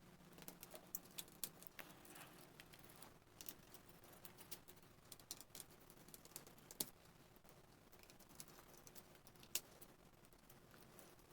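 Faint, irregular light clicks and taps of small-parts handling on a workbench, with two sharper clicks about seven and nine and a half seconds in.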